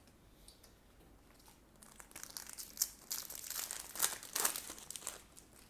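Foil trading-card booster pack crinkling as it is torn open by hand. The crackling starts about two seconds in, gets loudest near the middle, and stops shortly before the end.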